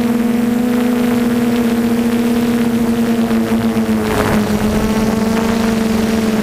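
Brushless motors and propellers of an F330 quadcopter humming steadily at an even pitch, heard from on board. A brief rush of wind noise about four seconds in, when the pitch dips slightly.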